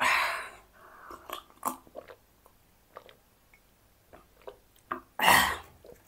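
Close-miked mouth sounds of a person eating and drinking: a loud breathy hiss at the start and another about five seconds in, with small wet mouth clicks and sips from a glass of soda between them.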